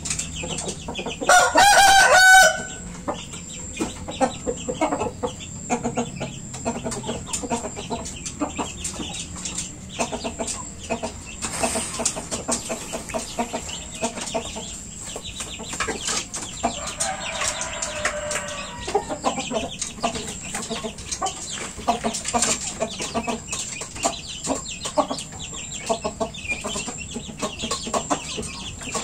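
Chickens clucking, with many small clicks throughout. A loud, short call from a chicken about a second and a half in, and a rooster crowing more faintly, for about two seconds, near the middle.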